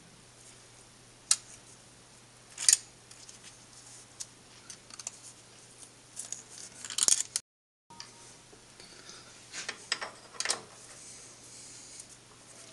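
Small metal tool scraping and clicking in the bolt holes of a Colchester Triumph 2000 lathe's gap piece, digging out packed grime and swarf, with a few sharp scratches.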